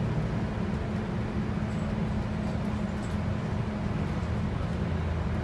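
Volvo 8900LE city bus (B7RLE chassis, Voith automatic gearbox) heard from inside the passenger cabin, its rear-mounted six-cylinder diesel running steadily under way, with a low drone and road noise.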